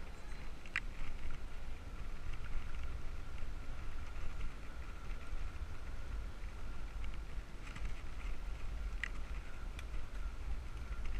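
Riding noise on a bicycle-mounted action camera: steady wind and road rumble with light rattling, and two sharp clicks, one about a second in and one near the end.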